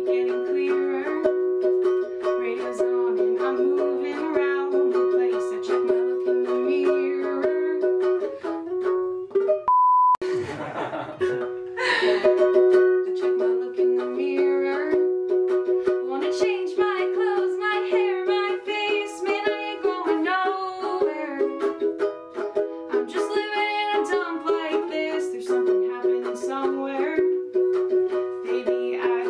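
Ukulele strummed through a song, with a woman singing along. About ten seconds in, a short steady beep cuts in over it, followed by a second or two of noisy crackle before the song carries on.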